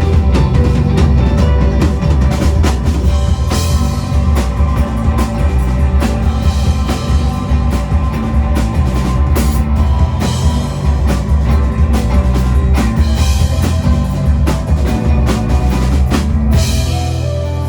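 Rock band playing live, with the drum kit hitting hard and cymbal crashes over bass and guitar. Near the end the drums stop and held bass and guitar notes ring on.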